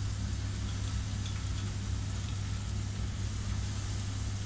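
A steady low hum with a faint, even hiss over it. There are no distinct clinks or knocks.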